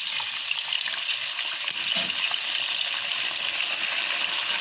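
Par-boiled mutton pieces frying in hot oil: a steady sizzle with fine crackles.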